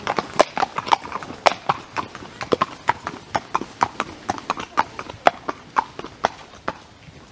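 Icelandic horse hoofbeats on a wet paved path: a quick, uneven clatter of hooves striking the asphalt, fading away near the end as the horse moves off.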